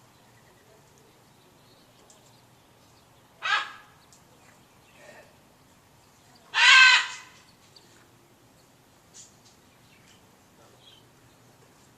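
Macaw squawking: two loud, harsh squawks, a short one about three and a half seconds in and a longer one about three seconds later, with a few faint calls between.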